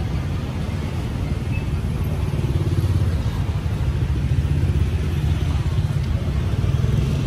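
Steady low rumble of street traffic with motorbikes running.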